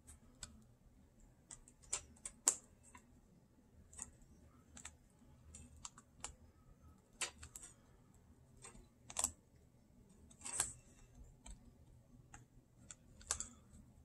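Faint, irregular small clicks and taps of fingers and fingernails on the ASUS ROG Zephyrus G14's battery connector and internals as the battery cable is pushed back into its socket. The clicks come one or two at a time, about every half second to second, with the loudest near the middle and near the end.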